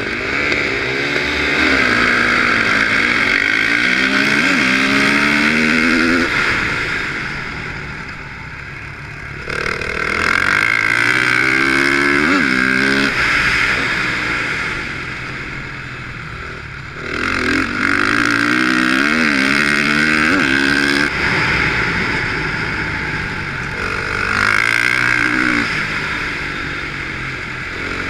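A 450 cc dirt bike engine racing on an ice track. Four times it revs hard, its pitch rising in steps through the gear changes, then drops back as the throttle eases off between the straights.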